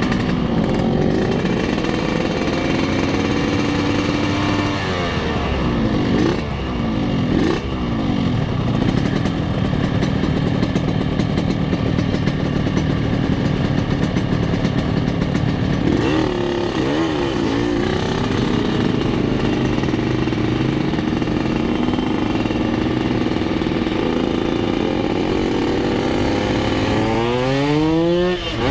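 Motorcycle engines idling at a stop, with a few quick throttle blips a few seconds in and again about halfway through. Near the end the revs climb steeply as the bikes pull away.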